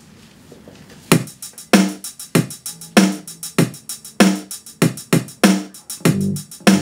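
A recorded band track with a steady drum beat playing through a small full-range PA speaker alone, the subwoofer turned all the way down, so the music sounds thin and lacks bass. It starts about a second in.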